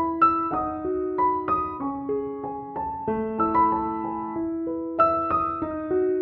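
Background piano music: a melody of separate notes, about three a second, over lower held notes.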